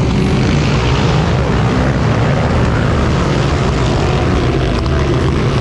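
A pack of motocross bikes racing past, many engines running together at once.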